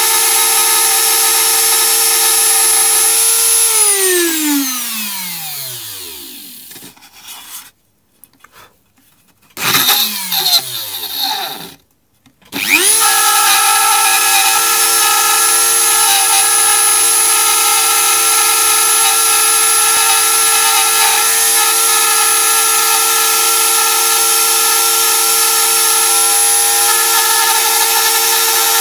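Dremel rotary tool with a routing bit runs at full speed with a steady high whine while routing a homemade PCB. About three and a half seconds in the motor is switched off and winds down over a few seconds, with a short blip of power around ten seconds. Just past twelve seconds it spins back up to speed in under a second and runs steadily again.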